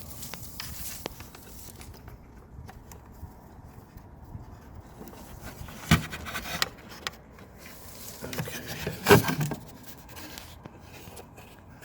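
Handling noise: scraping and rubbing as test leads and wiring are worked by hand, with a sharp knock about six seconds in and a louder clatter about nine seconds in.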